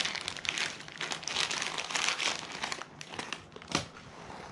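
Clear plastic packaging bag crinkling and crackling as it is pulled open by hand. The crinkling dies down near the end.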